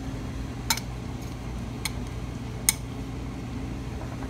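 A few sharp clicks of small metal compressor parts being handled and set down, over a steady low hum.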